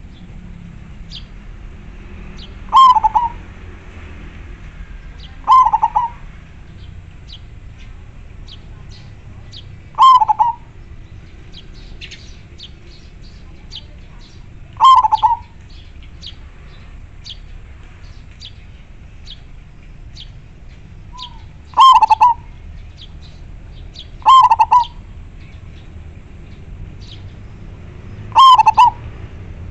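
Zebra dove (perkutut) cooing: about seven loud, short coo phrases a few seconds apart. Faint high chirps sound in the background between them.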